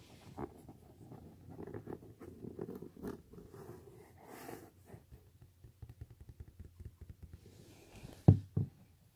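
Irregular scratchy rustling and scraping as a hand rubs and moves over a couch's upholstery, busy for the first few seconds and then quieter. Two short dull thumps come about eight seconds in.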